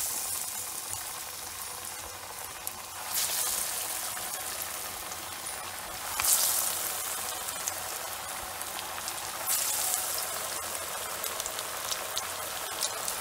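Masala vada patties deep-frying in hot oil with a steady sizzle. The sizzle flares louder each time another patty is slipped into the oil, about every three seconds.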